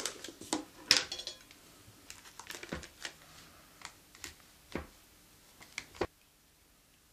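A plastic ice-cream tub being opened and a plastic spoon scraping and knocking as ice cream is scooped out and dropped into a mug. It makes a run of sharp clicks and taps, the loudest about a second in, and stops after about six seconds.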